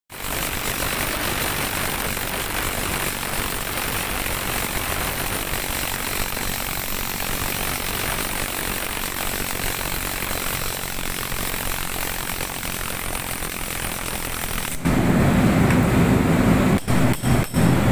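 Cordless impact wrench hammering steadily as it drives the centre bolt of a three-jaw puller to draw a pulley off a gearbox shaft. About fifteen seconds in, the sound turns louder and deeper, with a few brief breaks near the end.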